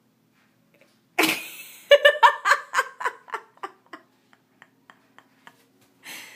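A burst of laughter: a sudden breathy outburst, then a run of 'ha' pulses that start loud and quickly grow fainter and further apart, trailing off. A short breathy sound near the end.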